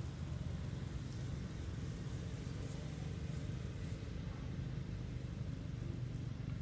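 A steady low engine rumble with no break and no animal calls.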